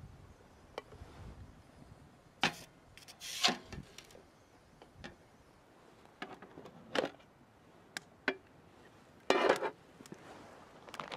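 An aluminium Trangia mess tin being handled: scattered light knocks and scrapes of the lid and tin, set down on a table, with a few short rustling bursts, the longest about nine seconds in.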